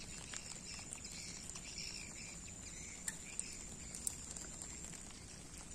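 Faint outdoor riverside ambience: a steady high thin whine, scattered faint chirps and a soft even hiss, with a few sharp light clicks about three and four seconds in.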